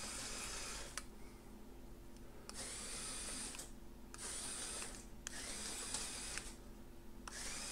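The electric drive motors of a Mould King QJ brick-built toy steam locomotive whir in short runs of about a second. They cut in and out about five times with brief pauses between.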